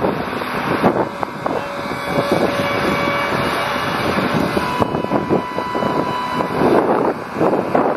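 Wind buffeting the microphone in uneven gusts, with faint steady machinery whines behind it.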